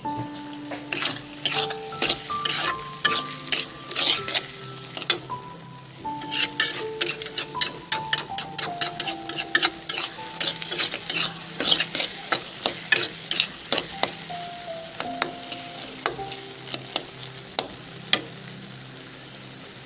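A cooking utensil repeatedly scraping and knocking against a metal pan as fish innards and peas are stir-fried, with the food sizzling underneath. The stirring comes thick and fast, then thins to occasional knocks in the last few seconds, over soft background music.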